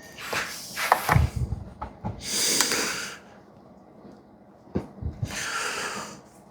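Handling noises at a knife sharpener: a few clicks and a low knock, then two short hissing sounds about three seconds apart.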